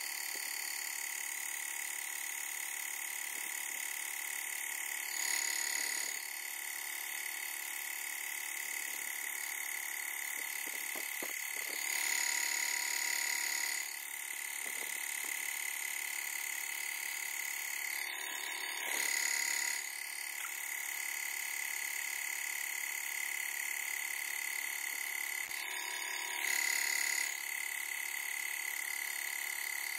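Hatsan Tactair Volt portable PCP air compressor running as it fills an air rifle toward 200 bar, played back at six times speed so it comes out as a high, steady whine. It swells louder briefly four times, about every seven seconds.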